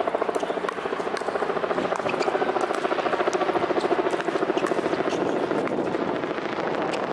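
A helicopter's steady, fast-pulsing rotor thrum, with several sharp pops of pickleball paddles hitting the plastic ball during a rally.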